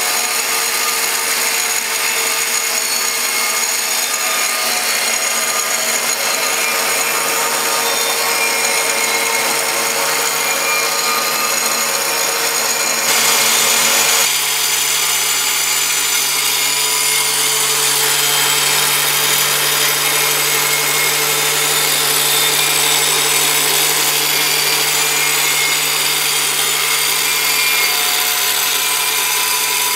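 Angle grinder with an abrasive cut-off disc running steadily under load, cutting through steel plate to form sprocket teeth. It makes a constant whine over the grinding noise, and the sound changes about a third of the way in.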